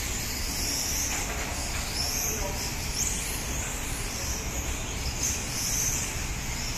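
Electric 1/12-scale RC pan cars lapping a track: high-pitched motor and drivetrain whines that rise and fall as the cars speed up and slow down, over a steady background noise.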